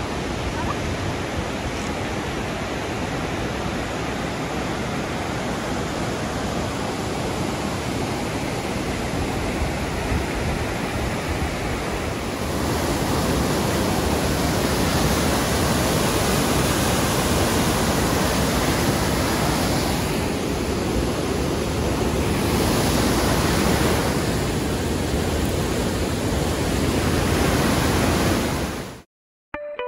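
Waterfall of white water pouring out of a rock tunnel: a steady rushing noise that grows louder about halfway through and cuts off suddenly near the end.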